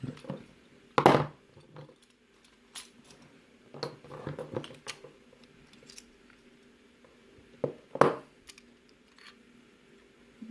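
Metal padlock parts clinking and knocking as they are handled and set down, with two louder knocks about a second in and about eight seconds in and a run of small clinks between them.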